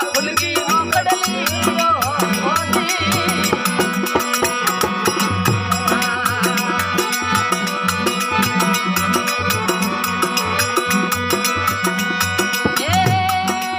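Instrumental interlude of a folk devotional bhajan: hand drum and jingling percussion keep a steady beat under sustained melodic instrument lines. Near the end a voice comes in on a long held note.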